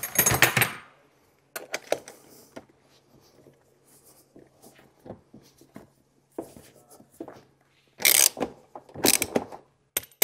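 Ratchet wrench and socket tightening the nut on a quad bike's front wheel axle, with scattered clicks and knocks of handling the wheel and tool, louder rasping bursts about eight and nine seconds in, then a quick even run of ratchet clicks at the end.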